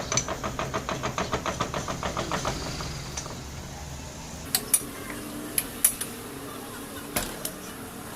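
Hand tool work on a motorcycle's free gear as it is taken apart to change its rubbers: a quick, even run of metal tapping strokes, about six a second, dies away after two or three seconds, then a few sharp metal clicks follow, mostly in pairs.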